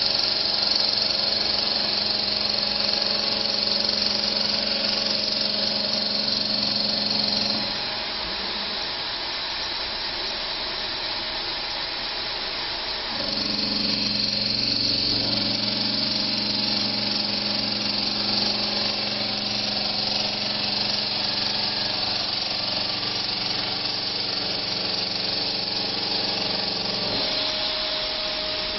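CNC bridge saw machining a shower base: the spindle and tool run with a steady whine and hum. The sound drops back about eight seconds in, comes back at full strength around thirteen seconds, and shifts to a different tone near the end.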